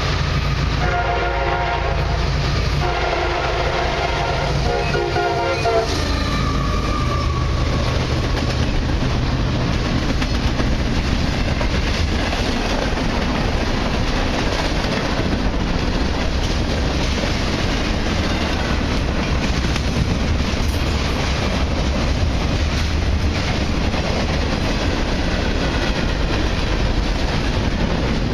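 Freight locomotive's air horn sounding for a grade crossing in several blasts, the last long one cutting off about six seconds in. Then the train of hopper cars rolls past: a steady heavy rumble with wheels clattering over the rails.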